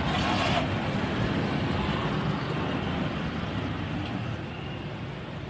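Wind buffeting a phone's microphone: a steady, uneven low rumble, with a short hiss in the first half-second.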